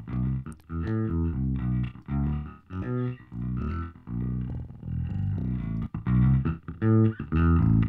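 A low bass part played as a run of short separate notes, several a second with brief gaps between them. It is heard through the Sound Radix Surfer EQ2 harmonic filter set to a little boost.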